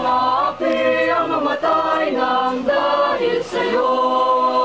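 Small mixed choir of young women and men singing a cappella, moving through short notes and then holding a long note near the end.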